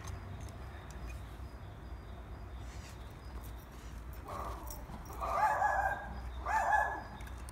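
A small dog yapping in three high-pitched bursts, starting about four seconds in, over a low steady rumble.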